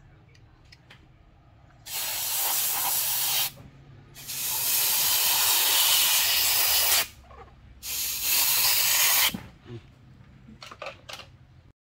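Pressurised spray released in three hissing bursts, the middle one the longest, with short pauses between; a few faint clicks follow.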